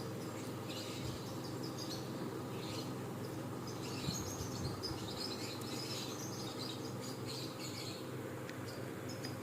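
Small birds chirping in short, scattered bursts over a steady low hum.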